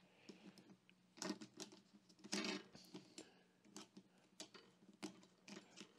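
Faint scattered clicks and taps of small stainless-steel tweezers and a clear plastic case being handled on a wooden tabletop, a little louder about a second in and again around two and a half seconds in.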